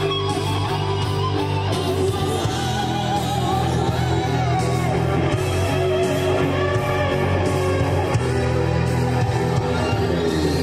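Background music: a song with singing over guitar and a steady low accompaniment.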